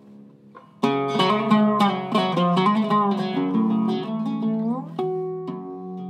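Iraqi-style Zeryab oud with a cedar top and mahogany back being played. Soft notes for the first second, then a loud run of fast plucked notes that glide up in pitch near the end and settle on a held note.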